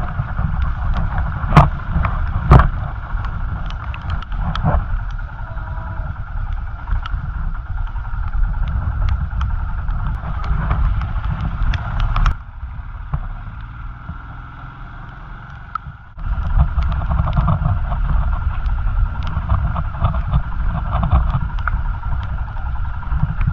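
Motorcycle engine running at low speed on a rough, wet road, with scattered knocks and rattles, two of them loud within the first few seconds. The engine sound falls away for a few seconds just past the middle, then picks up again.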